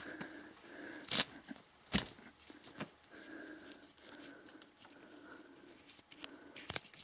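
Nylon 550 paracord being pulled free of its slip-knot braid and handled, the cord rasping through the loops in a few short, sharp strokes with quieter rustling between.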